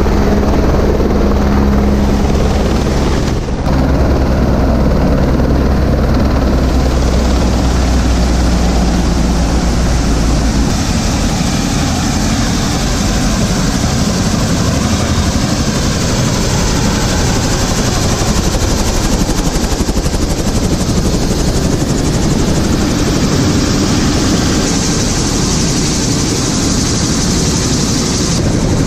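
Helicopter running close by with its rotor turning, loud and steady. A low rotor beat is strong for about the first ten seconds, then gives way to a broad rushing noise of engine and rotor wash.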